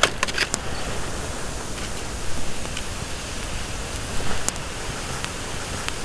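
Aluminium foil crinkling in a quick cluster of sharp clicks as the foil lid is peeled off a foil tray on the coals, then a steady rushing outdoor background with a few sharp crackles from the burning wood and coals.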